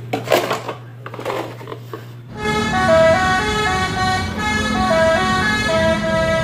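A bus's multi-tone musical horn of the Indonesian "telolet" kind, playing a melody of held notes that step up and down; it starts suddenly about two seconds in and is the loudest sound. Before it there is a low hum and brief rustling.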